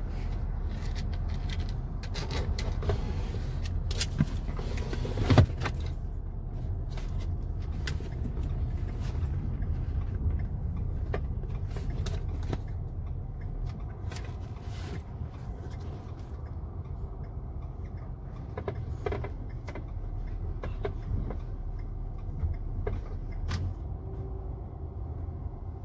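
Steady low rumble of a car's engine and tyres heard inside the cabin while driving, with scattered small clicks and rattles and a sharper knock about five seconds in.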